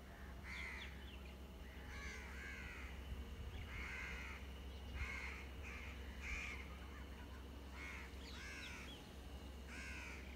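Crows cawing repeatedly: about a dozen short, harsh calls, some single and some in quick pairs, over a low steady rumble.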